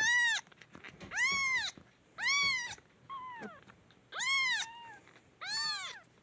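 Two-week-old kittens mewing: about six high, thin mews, roughly one a second, each rising and then falling in pitch.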